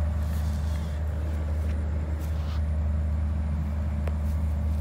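A steady low mechanical hum, like an engine or motor running, with a faint click about four seconds in.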